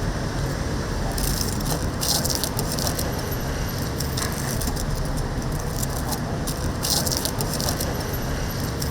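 Whole chickens deep-frying in oil with a steady sizzle, and brief rattling clatters a few times as they are handled.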